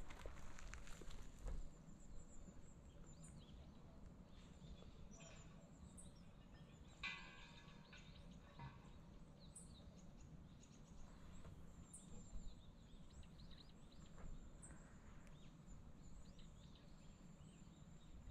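Near silence: quiet outdoor ambience with faint, scattered bird chirps, and one brief rustling noise about seven seconds in.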